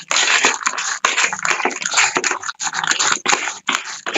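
Damp chicken-feed mash of rice, corn and bran being stirred in its container, an irregular scraping and rustling with short breaks.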